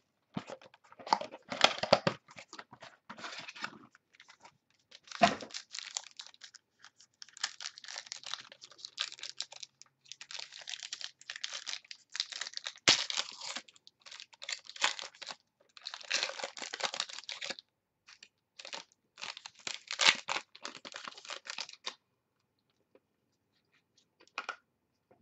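Hands tearing open and crinkling the wrapping and cardboard of a box of football trading cards, in irregular bursts of tearing and rustling that stop about three seconds before the end.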